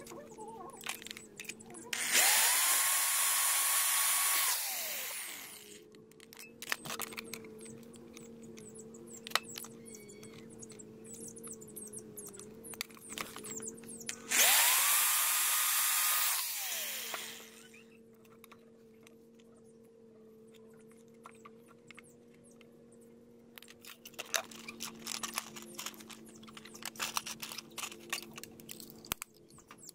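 Power drill boring holes through PVC pipe in two runs of about three seconds each. Each run starts with the motor whine climbing and ends with it falling as the drill stops. Small clicks of handling sound between the runs, scratchy handling noise comes near the end, and a steady low hum runs underneath.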